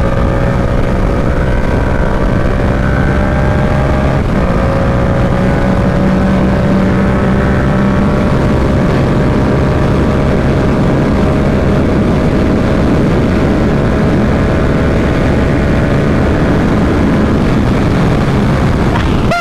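Yamaha R7's parallel-twin engine running at speed under heavy wind noise on the helmet microphone. The engine note rises slowly, with a short dip about four seconds in.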